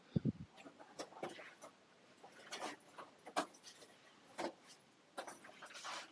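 Footsteps on the glacier ice cave's ice and snow: a low thump at the start, then faint, irregular crunches and scrapes a few times a second.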